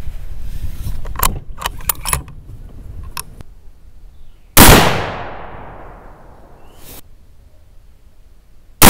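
A .30-06 bolt-action rifle: its bolt worked with a few sharp metallic clicks about a second in, then a single loud rifle shot about four and a half seconds in, with a long echoing tail. A second shot goes off right at the end.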